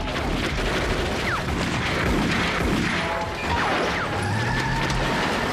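Staged gunfight sound effects: a dense clatter of shots and crashing, with a music score underneath.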